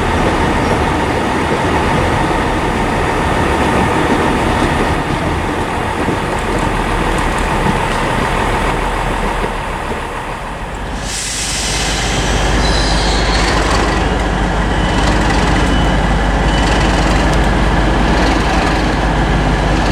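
Train moving on the track, with continuous rail and running noise. About halfway through, a steady low engine drone grows stronger, and a few brief high squeals follow.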